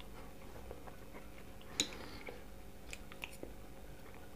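Soft close-up mouth sounds of a person chewing food, with a few small wet clicks, the sharpest just before two seconds in.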